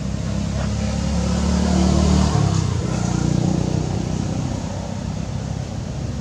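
A passing motor vehicle's engine. Its low rumble builds to a peak about two seconds in, shifts pitch, then slowly fades.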